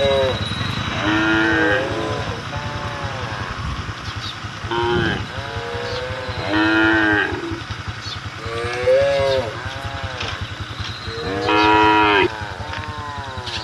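Cattle mooing, about six separate calls a second or two apart, calling to the herd. A steady low rumble runs underneath.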